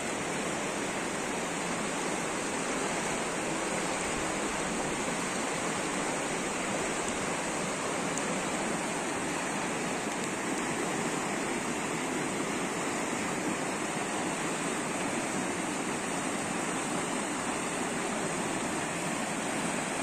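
Fast-flowing river running over a shallow bed, a steady, even rush of water.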